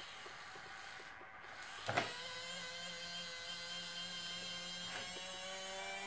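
Electric tipper motor and gear drive of a Carson RC Mercedes-Benz Unimog model, whining steadily as it raises the bed under about half a kilogram of stones. There is a sharp click about two seconds in. The mechanism strains a little under the load at first.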